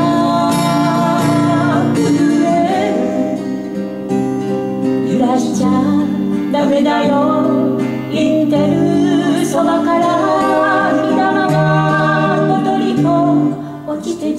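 Woman singing a Japanese folk song to two strummed acoustic guitars. Her voice stops near the end while the guitars play on.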